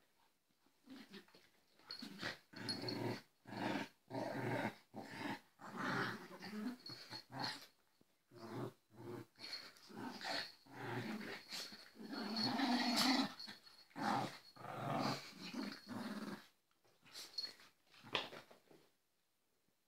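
Dogs play-fighting, growling in a run of short growls one after another, the longest and loudest about two-thirds of the way through.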